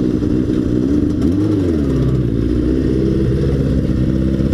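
Motorcycle engine running, its pitch rising and falling once about a second in, then settling to a steady low idle.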